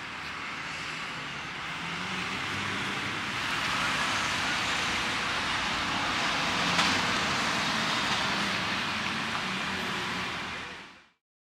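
Road traffic on a busy street: cars and a lorry driving past, with tyre and engine noise that swells in the middle and cuts off near the end.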